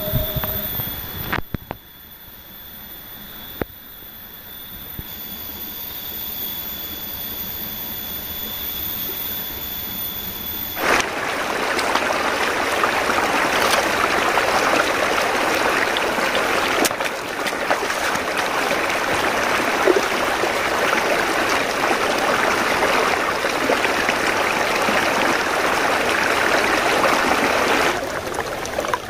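A rocky mountain stream rushing and splashing over boulders. It starts abruptly about eleven seconds in and drops away near the end. Before it there is a quieter stretch with a steady high-pitched whine.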